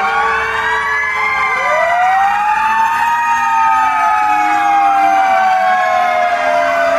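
Several fire truck sirens wailing at once, their slow rising and falling tones overlapping and out of step with one another.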